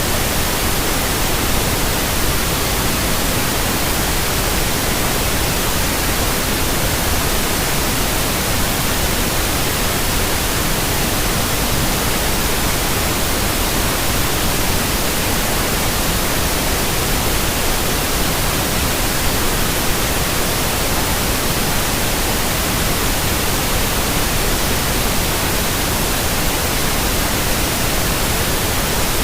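Steady white noise: an even, unchanging hiss spread across all pitches, with no breaks or changes.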